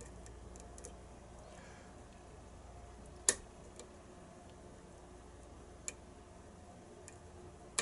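A lock pick and tension wrench working the pins of a challenge lock: scattered faint metallic ticks, with one sharp click about three seconds in and smaller clicks near six seconds and near the end.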